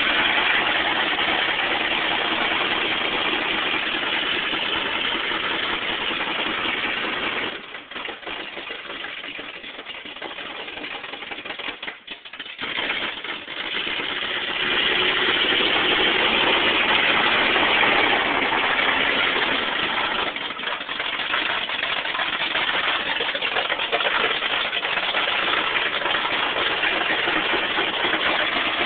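Engine of a lifted Chevy truck on 53-inch loader tires, running as the truck drives. The sound falls away for several seconds about a third of the way in, then comes back louder.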